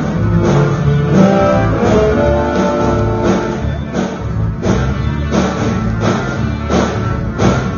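Live band music: electric guitar over an upright bass with a steady beat, its strokes about every 0.7 seconds.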